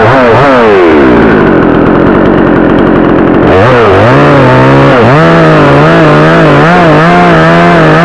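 62cc two-stroke chainsaw engine running loud: the revs rise and fall away over the first second or so and run lower, then about three and a half seconds in it is revved up again and held at a wavering part throttle.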